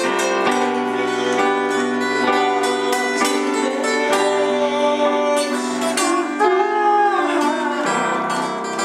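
Acoustic guitar and electric keyboard playing a piece of music together, the guitar plucked and strummed over long held keyboard notes.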